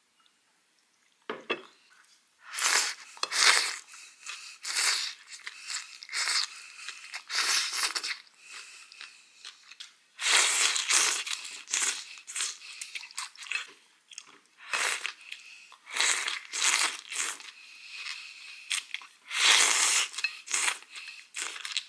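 Eating a plate of bún bò Nam Bộ with chopsticks: crunchy chewing of raw vegetables and slurping of rice noodles, in repeated irregular bursts that start about a second in.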